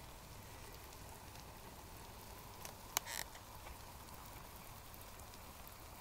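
Faint steady hiss with scattered small ticks from water heating in a paper origami container over a small alcohol stove, with tiny bubbles forming. A sharp click and a brief rustle about three seconds in.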